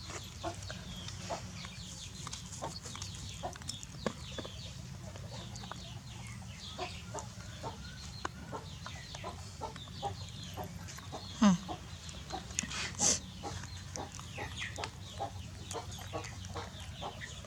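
Chickens clucking and peeping: many short, high, falling chirps come one after another over a steady low rumble. Two louder calls stand out about two-thirds of the way through.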